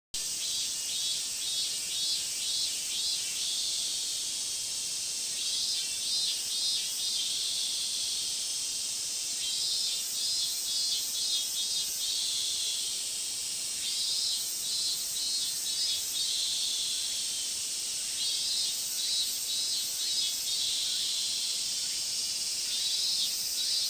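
Insects chirping outdoors: trains of rapid pulsed trills, each about two seconds long, repeating every four seconds or so over a steady high-pitched hiss of more insects.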